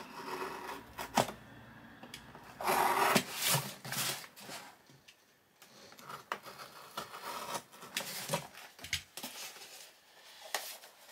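Utility knife slicing through packing tape on a cardboard box, with scraping, sharp clicks and cardboard rustling as the box is cut and opened; the loudest scrape comes about three seconds in.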